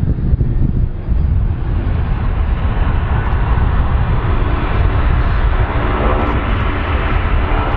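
Large jet aeroplane's engines: a heavy, steady rumble, with a whine of several steady engine tones building up in the second half.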